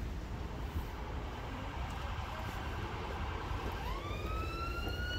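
Low rumble of wind throughout; nearly four seconds in, an emergency vehicle siren starts up, one tone sliding quickly upward and then creeping higher as it holds.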